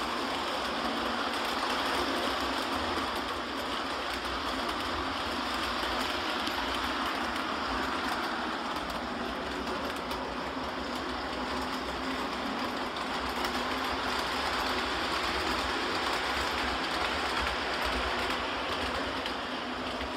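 Model trains running on a layout, a Rio Grande passenger train among them: a steady rumble and clatter of small wheels rolling on the track.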